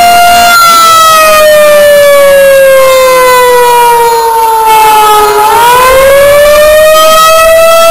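Outdoor warning siren sounding loudly during its monthly test: a steady tone that about half a second in slowly falls in pitch for some five seconds, then rises back up within about two seconds.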